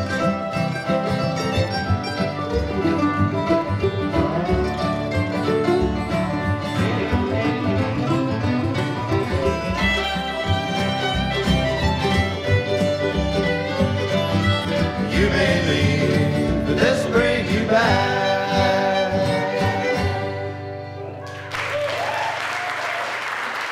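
String jug band playing an instrumental break with fiddle, mandolin, acoustic guitars and washtub bass. The tune ends about twenty seconds in, and audience applause starts about a second later.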